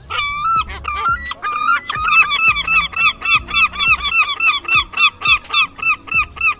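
A bird calling in a fast, even series of short arched notes, about four or five a second, after a few longer, irregular calls in the first two seconds.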